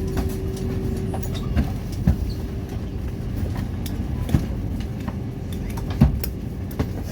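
Airliner cabin noise: a steady low rumble with a faint steady hum, broken by a few sharp knocks.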